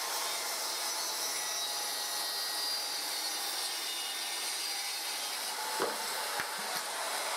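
Makita circular saw running and crosscutting a wooden board, a steady, noisy whine of the blade in the wood. A few small knocks near the end.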